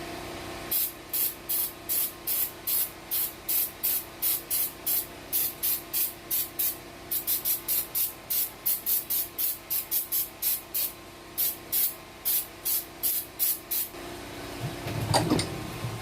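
Aerosol carb cleaner sprayed in rapid short bursts, about three hisses a second, to flush out an open small-engine crankcase. The spraying stops a couple of seconds before the end, followed by a brief knock of handling.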